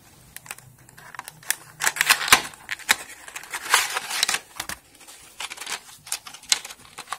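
Clear plastic blister tray and cardboard box being handled and slid apart as packaging is opened: a run of sharp plastic clicks and crinkles, thickest in the middle.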